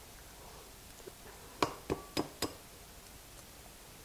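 An egg tapped against the rim of a small ceramic bowl to crack it: four quick sharp clicks about a second and a half in, with a fainter one just before.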